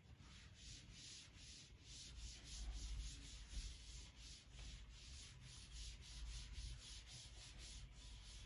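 Chalkboard being wiped with a handheld board duster: faint, rhythmic scrubbing strokes of the eraser across the board, about three a second.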